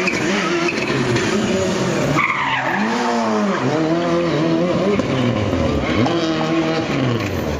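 Subaru Impreza rally car's flat-four engine revving up and falling back again and again as it is thrown around a cone course, with its tyres skidding on the tarmac.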